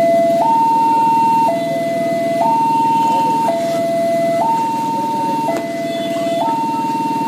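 Railway level-crossing warning alarm sounding: an electronic two-tone signal that alternates a lower and a higher tone, each held about a second, over a low steady rumble. It warns that a KRL commuter train is approaching and the barrier is closing.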